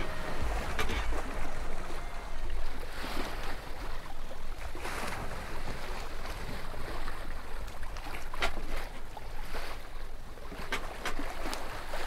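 Steady rushing ocean water noise with a low rumble, broken by short splashy bursts every second or two.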